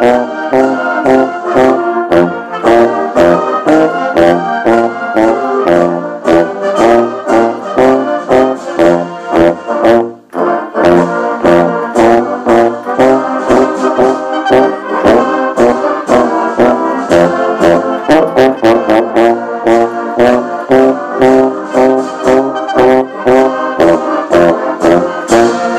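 Brass band playing a hymn in march style: full brass chords with low bass notes over a steady, evenly spaced drum beat. The music breaks off briefly about ten seconds in.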